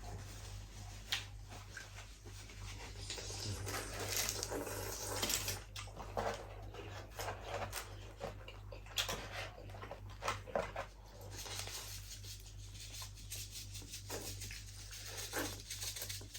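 Close-miked eating sounds: chewing and mouth noises, broken by frequent sharp clicks and knocks of utensils on dishes.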